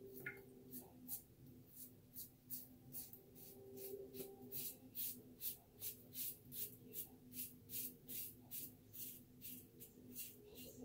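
A RazoRock Blackhawk v2 safety razor scraping through two and a half days' stubble on a lathered cheek, across the grain, in short quick strokes at about two to three a second.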